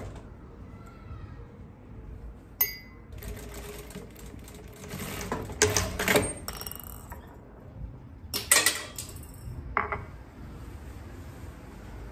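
Industrial lockstitch sewing machine stitching a dress shirt in several short runs, starting and stopping, with a sharp click about two and a half seconds in and fabric being handled between runs.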